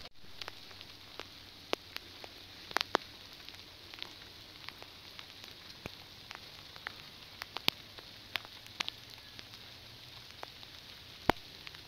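Wood fire crackling: irregular sharp pops and cracks over a steady hiss, the loudest crack near the end.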